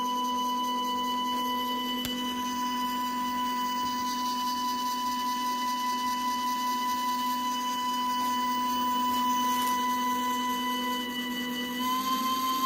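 Stepper motor driving a Taig headstock spindle through a belt, running with a steady whine of several held tones. Near the end the pitch steps up slightly.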